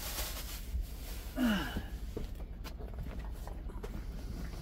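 Food jars and bags being handled and stowed in a truck-cab fridge drawer: faint rustling and light knocks over a steady low hum, with a short low grunt-like voice sound about a second and a half in.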